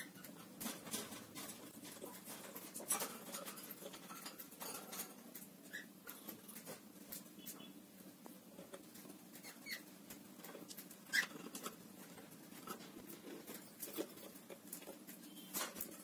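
Faint, scattered clicks and scratches of a cockatiel moving about on a wooden perch and at a wooden nest box, with a few brief soft squeaks.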